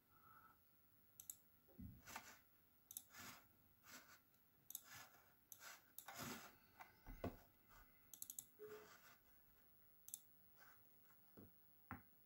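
Faint, irregular clicks and light knocks, about one or two a second, over near silence.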